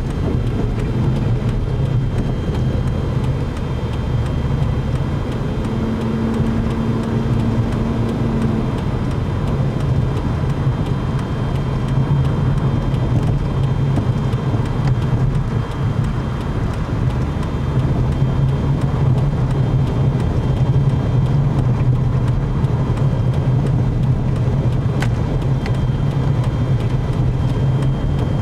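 Steady car engine and road noise heard from inside the cabin while driving, a low hum that runs without a break. A short steady tone sounds for a couple of seconds about six seconds in.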